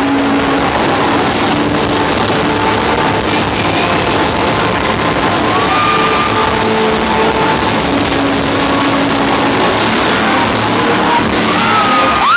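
Loud dance-routine music played over a hall's sound system and recorded poorly, so it comes through harsh and muddy. Near the end a high note slides up and holds.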